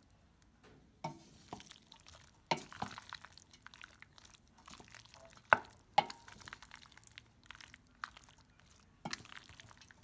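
Utensil clicking and scraping in a bowl, with a sharp knock about five and a half seconds in, as macaroni salad is stirred.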